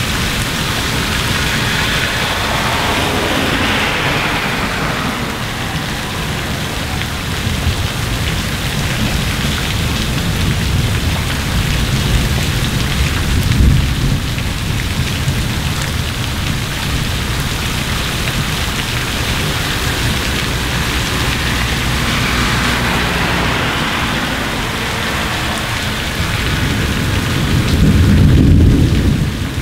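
Heavy rain pouring steadily, with thunder rumbling low a few times and a louder rumble near the end.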